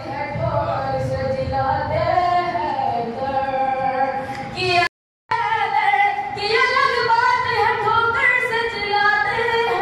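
A boy's unbroken voice singing an unaccompanied recitation into a microphone, holding long notes and sliding between them. The sound drops out completely for a moment about halfway through.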